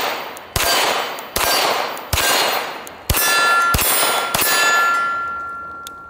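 Six shots from a Staccato P 2011 9mm pistol, fired at a steady pace a little under a second apart. Over the last three shots steel targets start ringing with a steady metallic tone that fades slowly after the firing stops.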